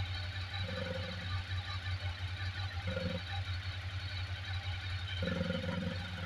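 Ducati Sport 1000 S's air-cooled L-twin idling with its normal light rattle, while a low drumming 'dododo' noise comes and goes in spells: about a second in, briefly around three seconds, and again near the end. The owner says this noise appears after a cold start and fades once the bike has been ridden a while, and its cause is unknown.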